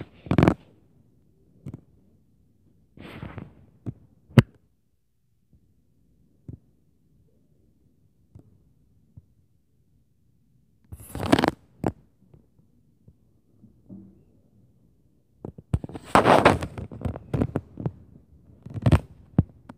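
Irregular thuds, knocks and bangs from the apartment upstairs, heard through the ceiling: the neighbours stomping. A sharp knock comes about four seconds in, a loud cluster of banging about halfway, and more bursts of banging near the end, with quiet gaps between.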